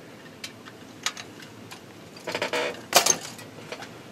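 Handling noises of a heavy brass model steam locomotive being put down on a workbench cutting mat: light clicks, a brief rattle, then one sharp metallic clack about three seconds in as it is set down.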